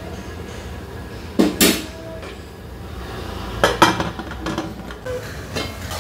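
Clanks of an aluminium pressure cooker being closed, as its lid is fitted and locked onto the pot. A pair of sharp clanks comes about a second and a half in, then a quick cluster near four seconds, with lighter knocks after.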